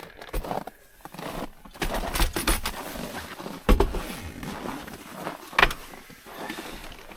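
Irregular knocks, clunks and rustling of objects being handled, with a sharp knock about halfway through and another a couple of seconds later.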